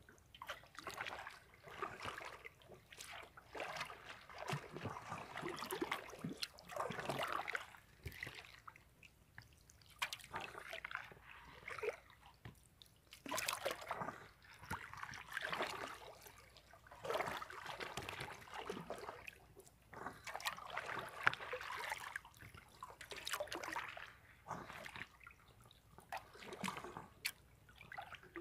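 Sea water splashing and sloshing close by, in irregular surges every second or two, as swimmers move through the water at the surface.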